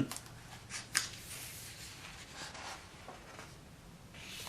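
Quiet room tone with two faint clicks, one at the start and one about a second in, over a faint soft rustle.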